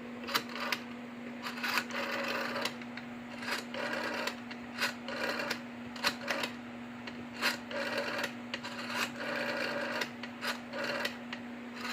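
Rotary phone dial being turned and released digit after digit, each return a short whirring run of clicks, about ten in turn while a full phone number is dialed. A steady low hum runs underneath.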